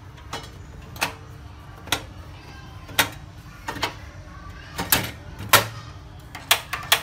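A piece of pork fat popping and spitting as it starts to render in a hot aluminium wok: about ten sharp pops at irregular intervals.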